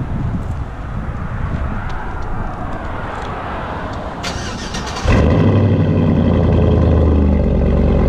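Chevrolet Silverado's 5.3-litre V8 briefly cranked by the starter, then catching about five seconds in and settling into a loud, steady idle through its new true dual exhaust with an X-pipe.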